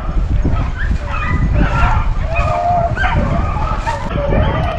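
Low rumbling wind buffeting the camera microphone as the hunter walks, with faint short yelps of beagles hunting in the distance.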